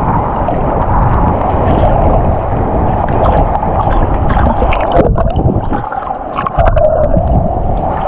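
Rough sea water sloshing and splashing close to the microphone, muffled, with a few sharper splashes about halfway through.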